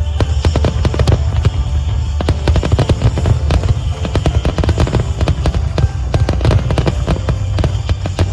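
Fireworks display: many cracks and bangs in quick succession, several a second, over a steady low rumble.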